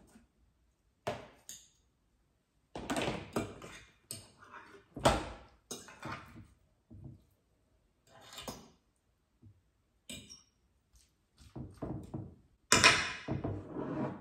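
Cutlery scraping cucumber-salad dressing off a container lid, then a fork scraping and clinking in a glass dish as the salad is stirred: short separate scrapes and knocks with pauses between them, the loudest cluster near the end.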